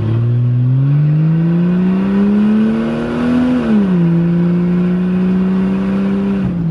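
1996 Jeep Cherokee engine, heard from inside the cabin, pulling hard under heavy throttle with the revs climbing, then dropping abruptly about three and a half seconds in as it shifts up and holding steady at the higher road speed. It runs cleanly with no high-RPM stumble now that the clogged gas tank and fuel pickup have been cleaned.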